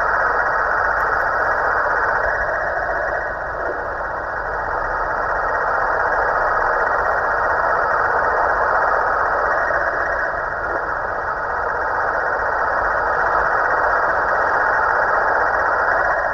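Snoring from the snoring Halloween pumpkin: a continuous, engine-like snore that swells and dips slowly every several seconds.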